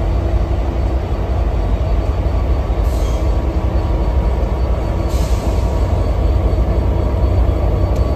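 Diesel locomotive idling close by: a steady, loud low rumble, with two short hisses about three and five seconds in.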